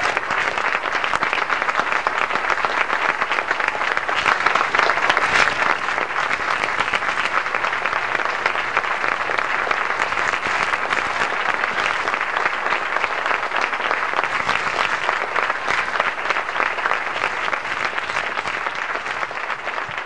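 Audience applauding, a dense, steady clapping that swells slightly about four to six seconds in.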